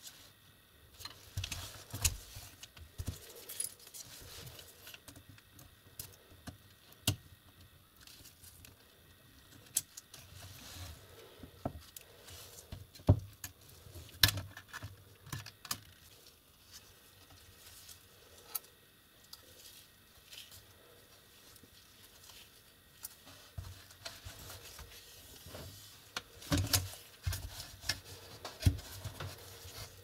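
Handling noise from taking apart an Acer laptop: scattered clicks, taps and light rattles of its plastic and metal parts as a cable connector is unplugged and the motherboard is lifted out of the case. The loudest knocks come about halfway and again near the end.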